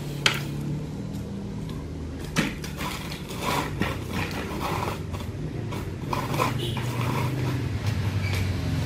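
Push broom's bristles scraping across a concrete floor in short, irregular strokes, with a sharp knock just after the start and another about two seconds in. A steady low hum runs underneath.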